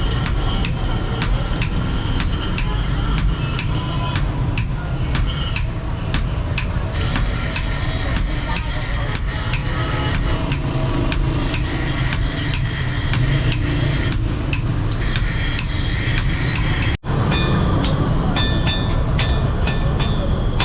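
Hand hammer striking steel on an anvil in a steady rhythm of about two blows a second, each blow ringing, over a constant low background rumble. The hammering breaks off for an instant about 17 seconds in, then resumes.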